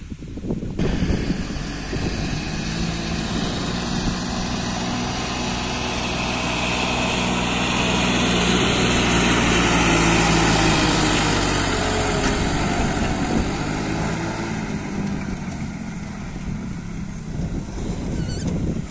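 John Deere farm tractor's diesel engine running as it drives past pulling a loaded sugarcane trolley. The sound starts abruptly just under a second in, grows louder towards the middle, then eases off.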